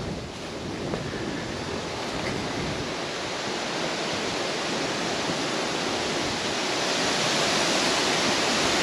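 Wind blowing, a steady rushing hiss that grows a little louder towards the end.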